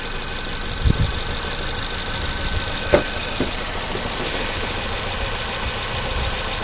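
2022 Nissan Rogue engine idling with a cylinder 3 misfire, a steady low rumble broken by a few short knocks about one and three seconds in.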